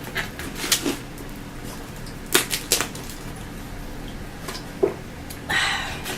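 Close-miked eating: scattered sharp crunches and mouth clicks of snack food being chewed, with a short rustling rush near the end.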